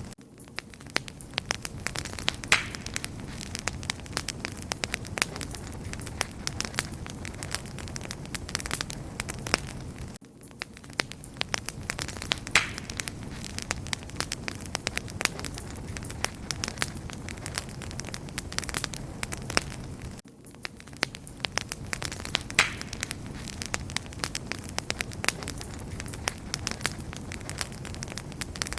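Wood fire crackling and popping steadily over the soft rush of the flames, with a louder pop about every ten seconds.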